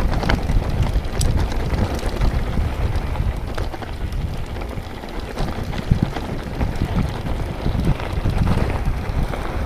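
Wind buffeting the microphone of an action camera during a mountain-bike ride, a continuous low rumble with scattered light clicks and rattles.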